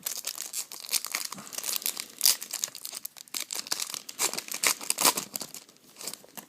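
A foil trading-card pack wrapper being torn open and crinkled by hand, a dense run of crackles and rustles that eases off near the end.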